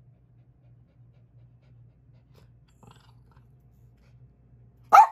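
Small dogs panting faintly, then one short, sharp bark near the end.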